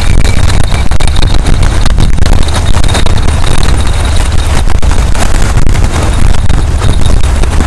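Strong wind buffeting the microphone, a loud, ragged low rumble that never lets up, over waves breaking and washing on the rocks.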